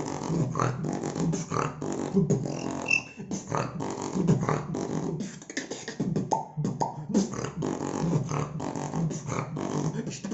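Dubstep-style beatboxing by one person: quick mouth-made kicks, snares and clicks in a rhythm over a low, buzzing vocal bass.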